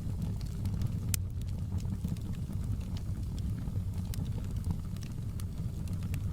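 Wood fire crackling: sharp pops at irregular intervals over a steady low rumble, with one louder pop about a second in.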